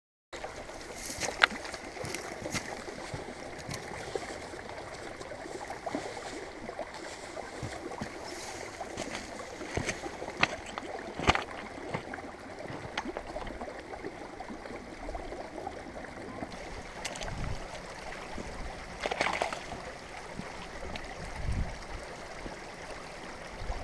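Shallow, rocky stream trickling steadily over stones, with scattered sharp clicks and knocks and a couple of low thuds near the end.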